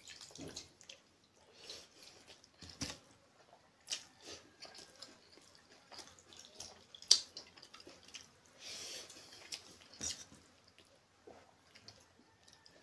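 A hand mixing and scooping pakhala, watery rice, in a steel bowl: faint wet squelching and dripping with small clicks against the metal, the sharpest clink about seven seconds in.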